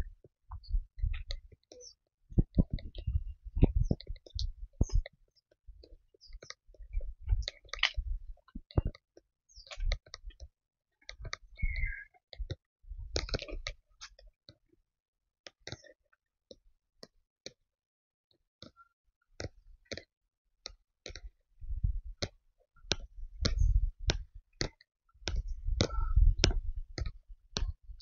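Footsteps of people walking along a dirt and concrete path, a crisp step about every half second, with low thuds in stretches.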